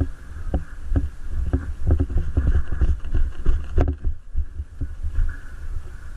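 Irregular low thumps and rustling from a body-worn camera jostled as the player moves, with one sharp click near the four-second mark.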